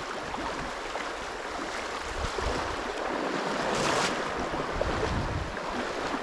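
Fast river current rushing over a shallow riffle, a steady wash of water, with a brief louder rush about four seconds in.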